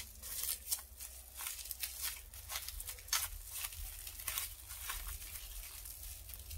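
Heat-resistant plastic bag crinkling in short, irregular crackles as hands squeeze and roll the dough wrapped tightly inside it.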